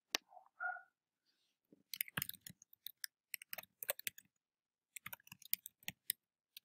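Typing on a computer keyboard: quick runs of key clicks, a first run from about two seconds in, a short pause, then a second run near the end.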